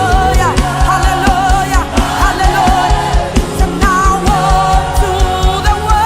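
Live gospel worship music: a band with bass and a steady drum beat, with singers holding long, wavering notes over it.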